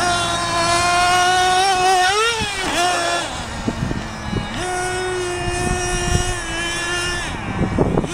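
SC8 radio-controlled short course truck's motor whining as it drives, its pitch rising and falling with the throttle. The pitch climbs and drops about two seconds in, then holds steady for a long stretch, with a few short knocks near the end.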